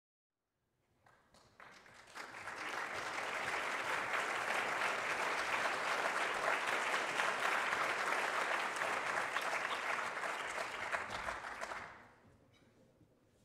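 Audience applauding. The clapping swells in over the first couple of seconds, holds steady, and stops quickly about twelve seconds in.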